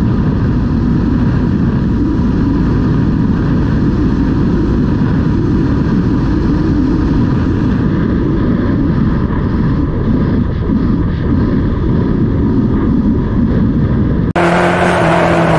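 Motorcycle cruising along steadily, its engine and road noise picked up by a helmet-mounted camera, as a low, steady rumble. It cuts off abruptly about a second before the end, and a vehicle horn starts sounding, held steady.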